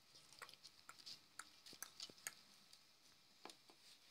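Near silence, with a few faint clicks and taps of small plastic toy figures being handled on a wooden table.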